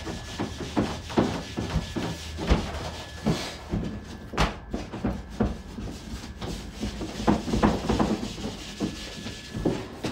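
Hand work on dough and filling: irregular knocks, taps and light clatter on wooden worktables, with a faint steady high whine behind them.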